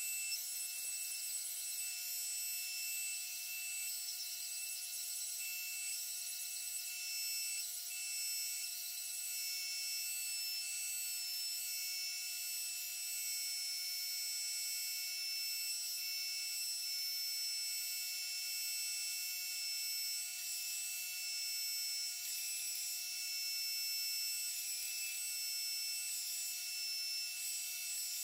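Belt grinder running steadily with a high whine made of several fixed tones, used to sharpen the edge of a carbon-steel chef knife.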